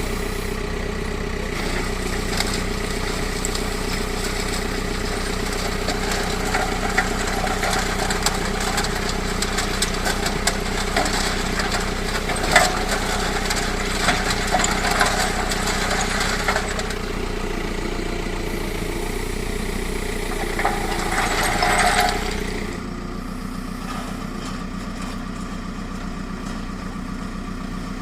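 A JCB backhoe loader's diesel engine runs steadily while its hydraulic bucket attachment crunches and rattles limestone and demolition rubble through most of the first two-thirds. There is one sharp knock about 12 seconds in and a short loud grinding burst around 21 seconds. After that the engine runs on alone, a little quieter.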